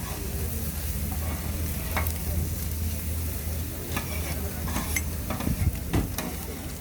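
Food sizzling and frying on a hot griddle: a steady hiss over a low rumble. A few sharp clicks come through, about one every second or two.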